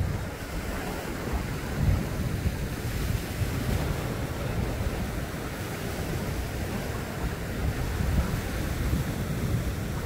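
Sea waves washing over shore rocks, with wind gusting on the microphone in low, uneven rumbles.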